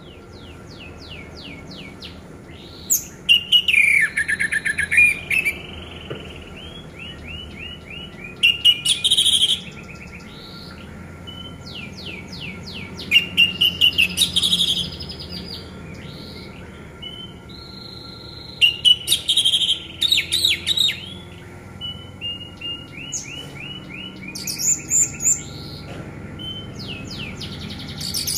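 Orange-headed thrush singing: phrases of rapid repeated whistled notes mixed with buzzier, scratchier notes, coming in bursts every few seconds.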